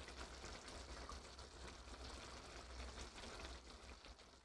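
Dubu duruchigi, tofu braised in a soy and chili sauce, simmering in a frying pan, the sauce sizzling and crackling steadily. It cuts off suddenly at the very end.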